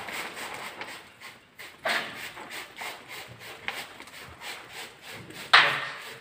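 Hand rubbing and sliding plastic window tint film over wet glass: four short swishes about two seconds apart, the last the loudest.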